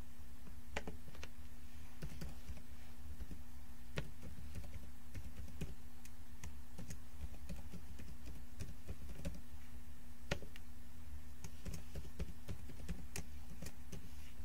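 Typing on a computer keyboard: irregular, scattered key clicks as an email address and password are entered, over a steady low hum.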